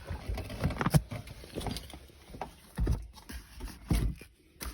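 Cardboard firework cake boxes being handled and set down: a few dull thuds, with fainter handling noise between them.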